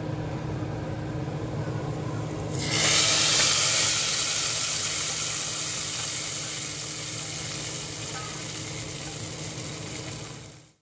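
Hot oil tempering with fried onions and cumin seeds poured from a pan into a pot of yogurt kadhi, setting off a loud sizzle about two and a half seconds in that slowly dies down, over a steady low hum.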